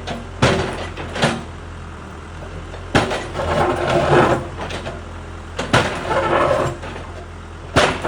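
Case 580 backhoe loader's diesel engine running steadily while its bucket breaks up a concrete floor: five sharp clanks of steel on concrete, with rough grinding scrapes of broken concrete after the third and fourth.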